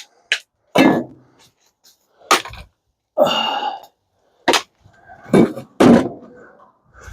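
Hand tools and metal parts knocking and clattering while a dishwasher's stainless steel handle is taken off: about seven separate short knocks, with a longer scraping clatter about three seconds in.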